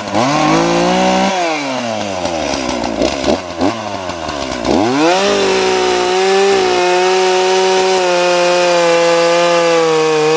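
Two-stroke gas chainsaw revving up, falling back through dropping revs, then held at high, steady revs from about five seconds in as it cuts through a mango branch, dipping briefly under load. By the owner's account its chain is worn out and needs replacing.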